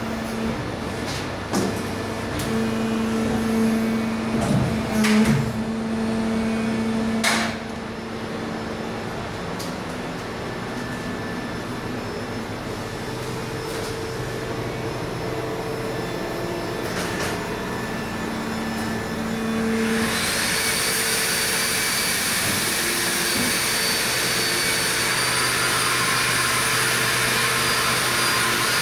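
Injection moulding machines running: a steady mechanical hum with a low tone that comes and goes and a few sharp knocks, then, about two-thirds of the way in, a louder hiss with a high whine over it.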